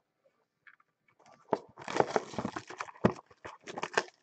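A baseball card pack's wrapper being handled and torn open close to the microphone: irregular crinkling and tearing, starting about a second and a half in.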